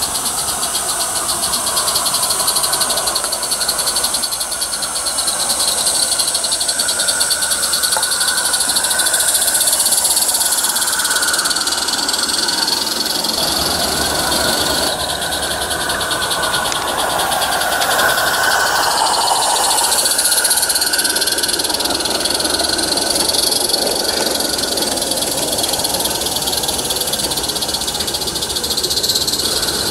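Two Roundhouse live steam locomotives, Dylan and Lady Anne, double-heading a train: a steady, fast chuffing from their exhausts with steam hiss as they run.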